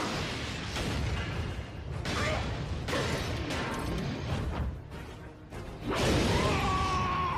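Animated robot-fight soundtrack: a dramatic score under battle sound effects of giant robots clashing, with whooshes and heavy impacts. A louder blast comes about six seconds in.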